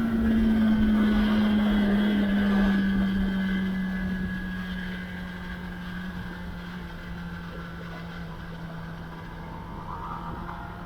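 2021 Kawasaki ZX10R's inline-four engine on the overrun, throttle closed. Its note falls slowly and steadily, and it gets quieter about four seconds in.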